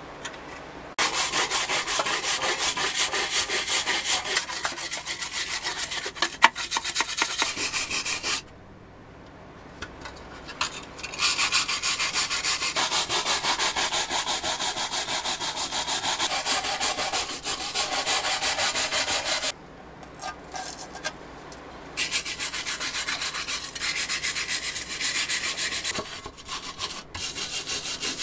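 Hand sanding rusty pressed steel from a 1970s Tonka toy forklift: fast, even back-and-forth scraping strokes of abrasive on metal, in three spells with short pauses between them.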